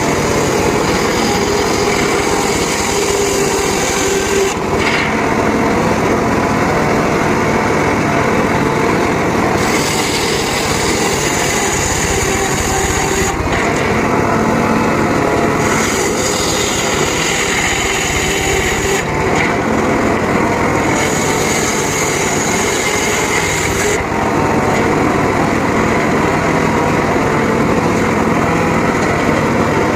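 Homemade engine-driven circular sawmill running steadily while slicing teak. A higher hissing cutting noise comes and goes in several spells of a few seconds each as the blade bites into the wood.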